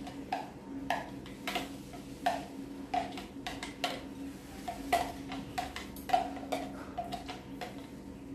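A spoon clinking against a glass bowl while stirring a thick semolina and vegetable batter: irregular light clicks, one or two a second, each with a short ring. A faint steady hum runs underneath.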